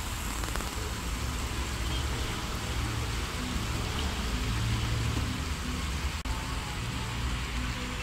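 Steady hiss and patter of a small pond fountain's jet falling back into the water, over a low constant rumble. The sound drops out for an instant about six seconds in.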